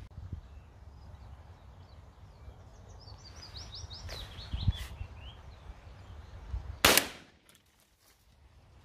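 A single loud 12-gauge shotgun shot from a Hatsan Escort semi-automatic about seven seconds in. Before it, a small bird sings a short run of quick descending chirps, over a rumble of wind on the microphone.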